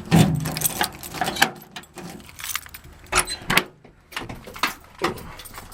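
Irregular clunks, clicks and jingling of keys and a pickup truck's door being handled, with no engine running.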